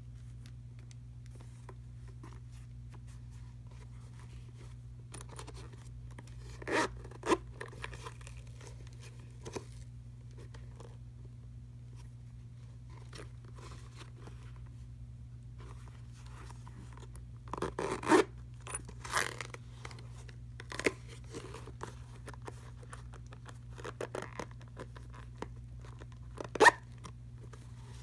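A pair of chunky-heeled lace-up combat boots handled by hand: scattered short rubs, scrapes and knocks of the rubber soles and uppers, the loudest knock near the end, over a steady low hum.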